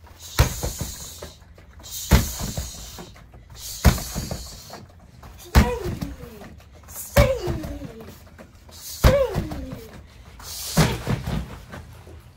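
Roundhouse kicks landing on a Century BOB freestanding striking dummy, seven heavy thuds about every second and a half to two seconds. Each kick comes with a short, sharp exhale from the kicker, several with a falling vocal grunt.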